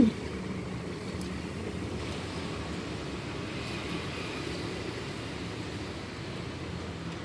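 A brief falling 'mm' from a voice right at the start, then a steady low background rumble with a faint hum.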